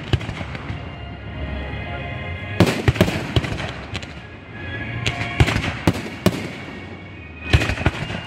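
Aerial fireworks shells bursting close overhead: loud, sharp bangs in quick clusters, three around three seconds in, four more between five and six and a half seconds, and a pair near the end.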